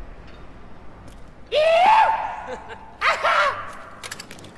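Two loud yells from a person: the first rises in pitch and is held for about a second, and a shorter, wavering one follows about half a second later.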